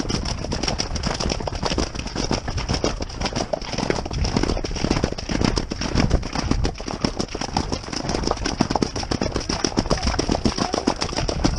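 A horse galloping over grass, with rapid hoofbeats under heavy wind noise on the microphone of a camera worn by the rider.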